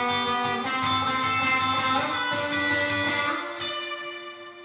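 Overdriven electric guitar played on the purple coil alone of a Lace Sensor Emerald/Purple dually humbucker, through a Universal Audio Dream '65 amp emulator: a short phrase of picked notes, the last one held and fading near the end.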